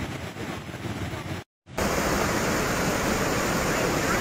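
Steady rushing roar of a muddy flash-flood torrent (kepala air) pouring down a hillside. It breaks off briefly about a second and a half in, then comes back louder and closer.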